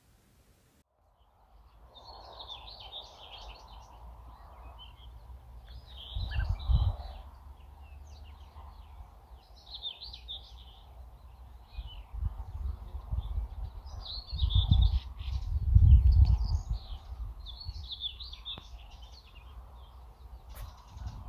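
Songbirds singing in short, repeated chirping phrases, with low rumbles of wind buffeting the microphone that are loudest about six and again about fifteen seconds in.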